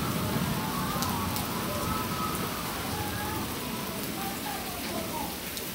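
Steady thunderstorm rain falling, with a few sharp ticks of drops landing close by.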